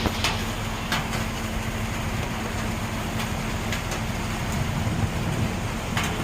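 Heavy rain falling steadily over a steady low rumble, with a few sharp taps about a second in, near the middle and near the end.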